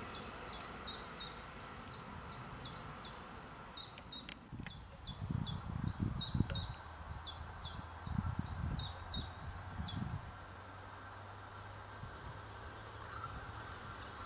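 A bird repeating a short, sharp, downward-slurred chirp about two to three times a second, stopping about ten seconds in. In the middle, low gusts of wind rumble on the microphone over a faint low hum.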